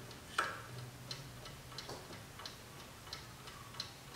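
1960s Hermle mantel clock movement ticking steadily while its minute hand is turned by hand, with one louder click about half a second in.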